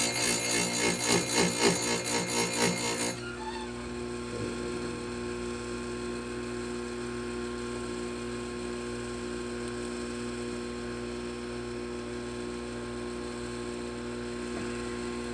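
Oregon electric chain grinder's stone grinding a chainsaw chain tooth in quick repeated touches, taking a little more off the tooth; the grinding stops about three seconds in, leaving a steady electric hum.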